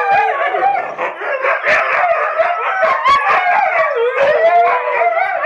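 Several huskies howling and yipping together, their long wavering calls overlapping, with short sharp yips between them.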